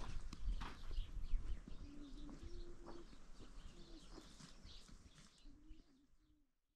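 A dove cooing in several short low phrases, with faint small-bird chirps and a couple of knocks in the first second and a half; the sound fades away near the end.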